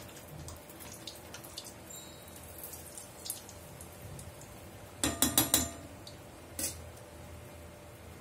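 Sweet rava appam deep-frying in hot oil in a small kadai, a steady light sizzle and crackle. About five seconds in, a quick run of metal clinks from the ladle against the pan and the steel plate, then one more clink a second later.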